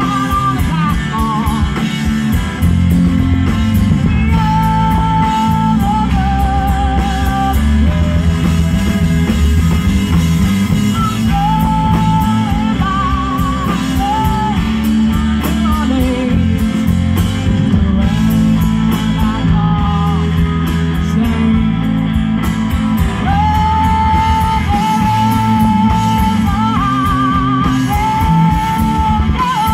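Live blues-rock band: a woman singing long held notes over electric guitar, electric bass and a drum kit.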